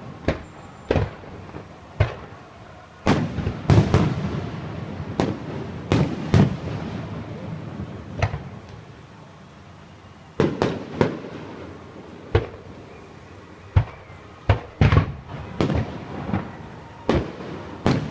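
Aerial fireworks bursting: irregular sharp bangs, some in quick clusters, the bigger ones followed by a low rolling rumble. There is a short lull about halfway through.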